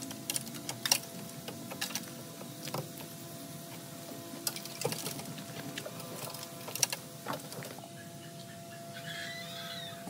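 Scattered light clicks and knocks at an irregular pace, over a faint steady hum.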